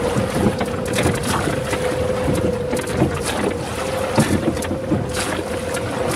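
A rowing cutter under way on a river: water noise and wind on the microphone, with irregular knocks and splashes from the oars, over a steady hum.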